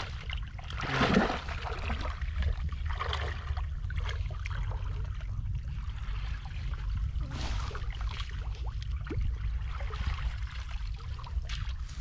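Shallow water sloshing and splashing in irregular bursts, the largest about a second in, over a steady low rumble.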